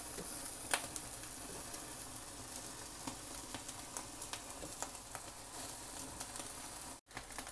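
Chicken drumsticks sizzling on a grill rack, a steady hiss with scattered small pops and crackles. The sound cuts out for a split second near the end.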